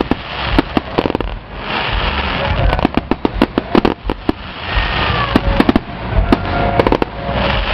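Fireworks going off: several quick volleys of sharp bangs and crackling from aerial shells bursting, with a rushing hiss between volleys.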